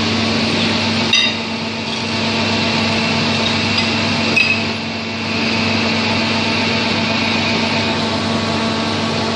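HFU-3A hydraulic underground drilling rig running with a steady hum. Two sharp metal clinks, about a second in and again near the middle, as the drill rods are worked with a wrench.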